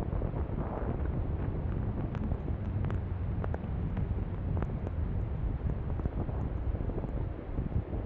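Strong blizzard wind buffeting the microphone: a steady low rumble that swells and eases with the gusts, with scattered faint ticks.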